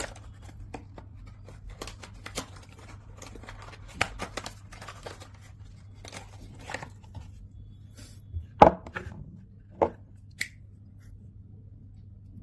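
Hands handling product packaging: scattered clicks, taps and rustles, with a sharper knock about eight and a half seconds in and another about a second later.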